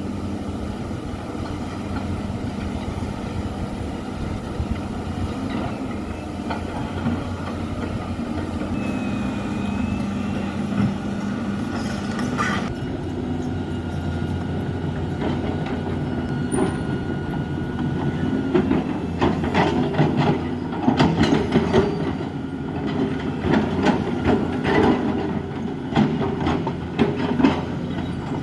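Caterpillar 320D excavator's diesel engine running steadily under load. A thin whine is heard for a few seconds midway. Over the last third come rapid clanks and knocks of metal and rock.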